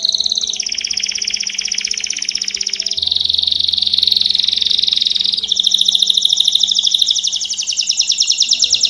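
Domestic canary of the type called 'Belgian canary' in Brazil, singing a continuous song of very fast trills. It switches to a new trill every two seconds or so, dropping lower about half a second in, then rising higher again.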